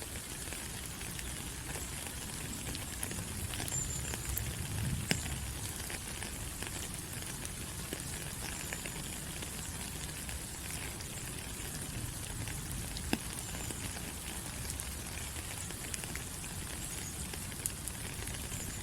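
Steady rain falling on rainforest foliage: an even hiss of drops, with occasional louder single drop clicks.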